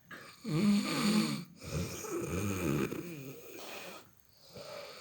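A sleeping person snoring: two loud snores, a shorter one about half a second in and a longer one starting around two seconds in, with a fainter one beginning near the end.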